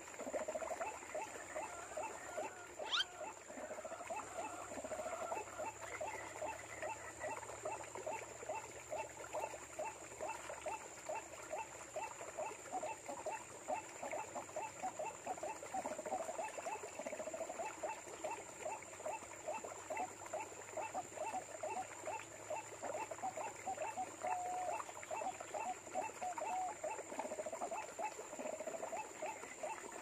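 White-breasted waterhen call as played from an MP3 lure caller: a fast, even run of short calling notes, about four a second, going on without a break. A single quick falling whistle cuts across about three seconds in.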